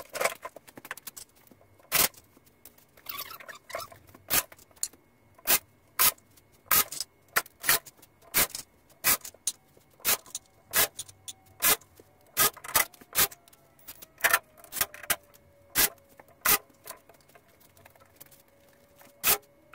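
A run of sharp clicks and knocks, about one or two a second, from the padded rail of a poker table being fitted back on and screwed down with a cordless drill. A faint steady whine, sinking slightly in pitch, runs under the second half.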